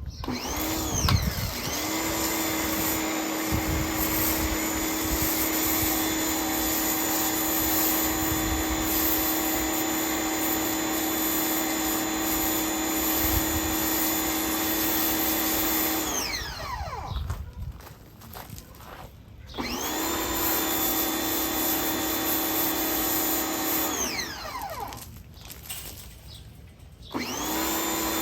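Electric pressure washer motor starting and stopping with the trigger: it spins up with a rising whine, runs steadily with spraying water for about sixteen seconds, winds down, starts again for about four seconds, stops, and starts once more near the end.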